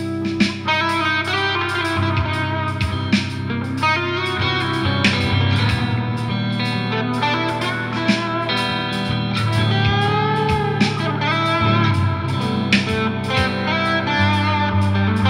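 Instrumental background music led by guitar, over a steady bass line with some bending melody notes.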